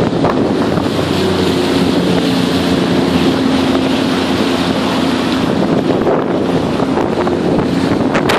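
Sea-Doo personal watercraft engine running steadily under way, with wind noise on the microphone.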